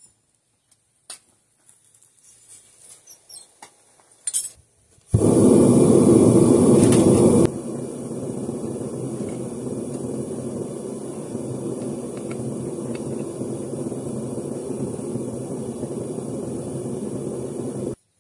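A metal-melting furnace's burner and blower running with a steady rushing noise and a faint hum. It starts abruptly about five seconds in, is loudest for its first two seconds, and cuts off sharply just before the end. A few faint clicks come before it.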